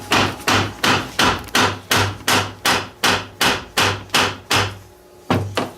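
Rapid mallet blows knocking apart a Polaris ATV's gearbox casing, about three strikes a second, each with a short metallic ring. After a dozen or so the blows pause, and one more strike lands near the end.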